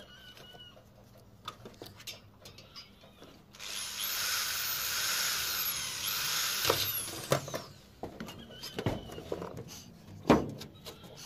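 Cordless drill running steadily for about three seconds, starting a few seconds in, as it bores through a thin sheet-metal patch on a metal roof. Scattered clicks and knocks of hand tools follow, with one sharp knock near the end the loudest.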